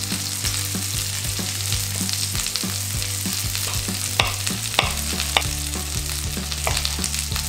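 Salmon fillets sizzling in a frying pan, a steady hiss. Over it, a knife slicing cucumber and tomato knocks a few times on a wooden cutting board, most plainly about four to five seconds in.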